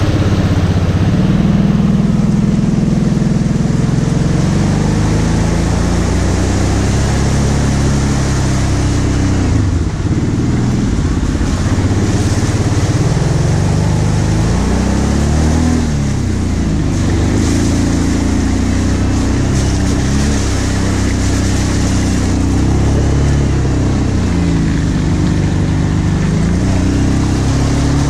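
Kawasaki KVF 750 Brute Force's V-twin engine running under load, its revs rising and falling as the quad pushes through mud and water, with a steady hiss of splashing and wind over it.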